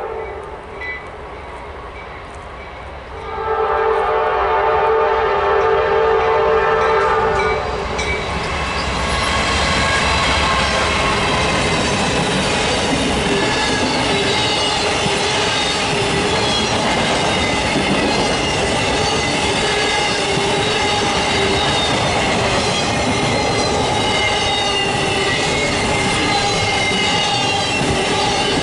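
Locomotive air horn sounding a chord: one blast ending just after the start, then a long blast of about four seconds. Then the train passes close by, a steady loud rumble of rolling cars with wavering high-pitched wheel squeal.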